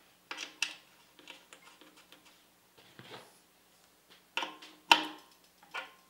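Handling noise of a coaxial cable's TNC connector being screwed onto a port on a microwave radio unit: several short clicks and rustles of cable and metal, the sharpest about five seconds in.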